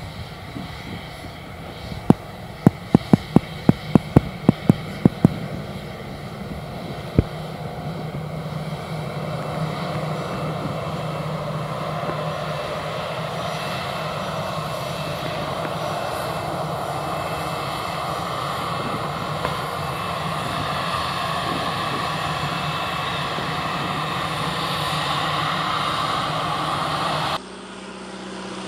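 Twin-engine jet airliner's engines running as it moves along the runway: a steady whine and rumble that grows slowly louder, with a run of sharp knocks about two to five seconds in. Near the end it cuts suddenly to a quieter light propeller plane's engine.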